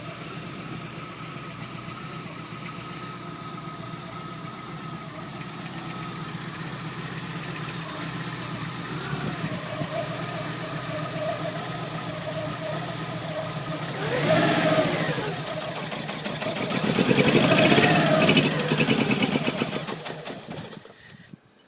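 VW Golf Mk2 GTI 8-valve four-cylinder petrol engine running at a steady idle, revved up and back down twice, then stopping near the end. The owner says this engine misfires and stalls under load.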